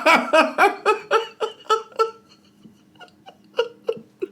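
A man laughing hard in a quick run of short pulses, about four a second, dying away after about two seconds into a few softer laughs near the end.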